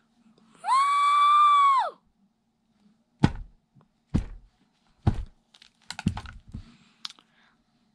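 A high-pitched held squeal of about a second, then several dull thuds roughly a second apart as plastic fashion dolls are knocked over and dropped onto the floor of the toy set.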